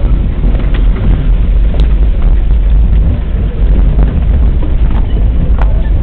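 Vehicle driving slowly over a rough dirt track, heard from inside the cabin: a steady low engine and road rumble, with a couple of sharp clicks, one about two seconds in and one near the end.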